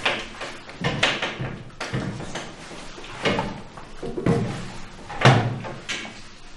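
A run of six dull knocks, about one a second, each with a short ring-out in the room.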